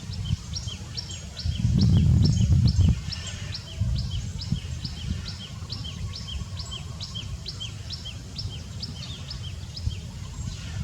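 A bird calling a long, even series of short high chirps, each sweeping quickly downward, about two to three a second, over a low rumble that is loudest about two seconds in.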